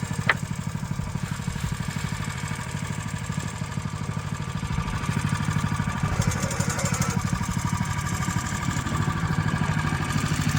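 Small gasoline engine of a Hudson portable band sawmill running steadily, with one sharp click about a third of a second in and a slight rise in level about halfway through.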